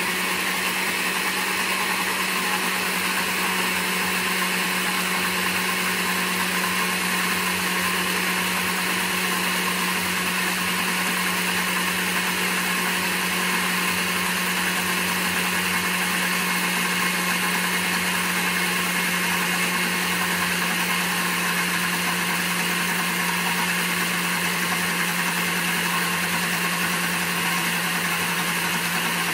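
Countertop blender motor running steadily at one speed with a constant hum, emulsifying an egg-based Caesar dressing while olive oil is drizzled in through the lid.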